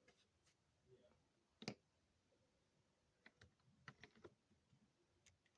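Near silence with a few faint clicks of plastic Lego parts being handled: one about a second and a half in, then a small cluster of light clicks around four seconds in.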